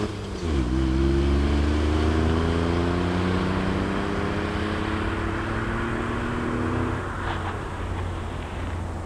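Warmed-up Seat Ibiza 6L 1.2 12V three-cylinder engine, breathing through an aftermarket NAP middle silencer and L&W rear silencer, accelerating away. The pitch dips briefly just after the start as it changes gear, then climbs slowly and drops off about seven seconds in as the throttle is lifted.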